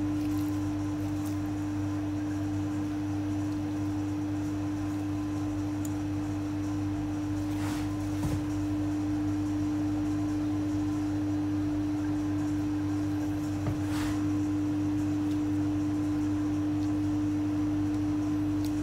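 A steady hum at one unchanging pitch, with a couple of faint brief taps, about eight seconds in and again near fourteen.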